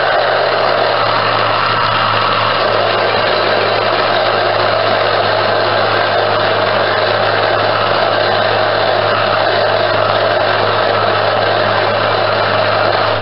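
Bosch countertop blender motor running steadily, blending a jar of pale cake batter, then stopping abruptly at the very end.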